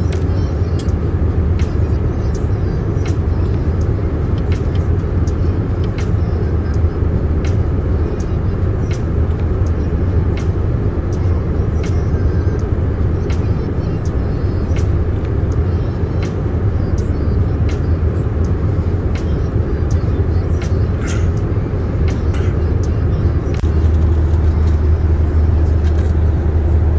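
Airliner cabin noise: a steady low rumble of engines and airflow, growing a little louder near the end.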